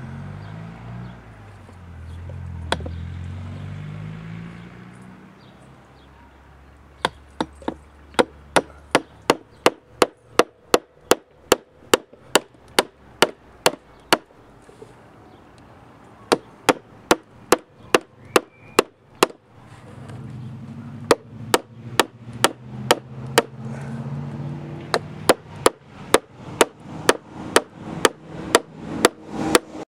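Strokes of a cutting tool working into a Sea-Doo jet pump's wear ring: a run of sharp ticks about three a second, starting a few seconds in and pausing briefly near the middle. A low drone sits under it at the start and again about two-thirds of the way through.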